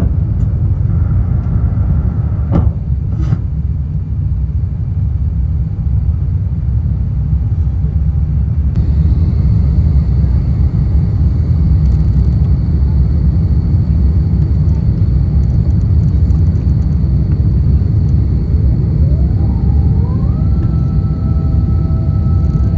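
Airbus A350-900 airliner noise heard from the cabin: a loud, steady low rumble. A high steady whine joins about nine seconds in, and near the end several tones rise in pitch and then hold.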